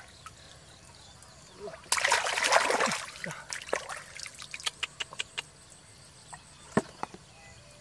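Hands groping and splashing in shallow muddy water while catching a fish by hand, with a burst of heavy splashing about two seconds in, then scattered small splashes and drips.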